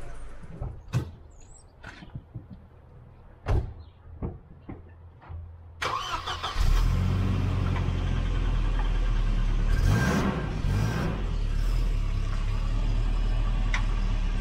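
A few clicks and knocks, then the 1988 Volvo 240's engine starts about six seconds in and settles into a steady idle, with a brief rev around ten seconds. The engine is known to run rough and shaky, the sign of worn engine mounts.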